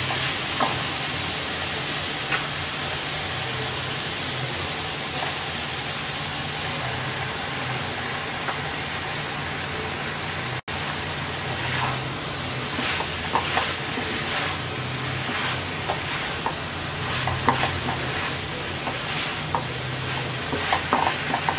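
Drumsticks, eggplant and tomato sizzling in oil in a wok as they are sautéed, with a wooden spatula stirring and scraping against the pan. The sizzle is steady and drops out for an instant about halfway through; after that the clicks and scrapes of the spatula come thick and fast.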